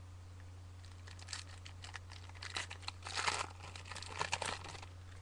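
The plastic wrapper of a 2008-09 First Edition basketball card pack being torn open and crinkled: irregular crackling that starts about a second in and is busiest in the middle and near the end.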